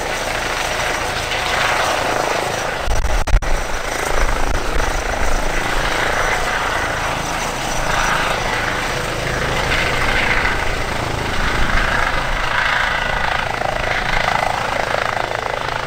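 Airbus H135 (EC135 P2) helicopter hovering low: the steady noise of its twin turboshaft engines, main rotor and shrouded Fenestron tail rotor. About three seconds in there is a brief low buffeting rumble.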